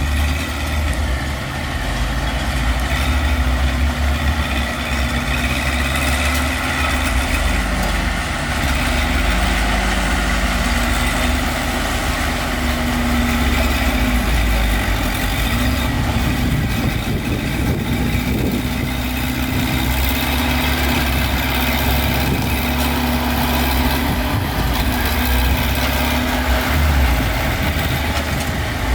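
Heavy diesel engines of earthmoving machinery running steadily, with small shifts in engine speed.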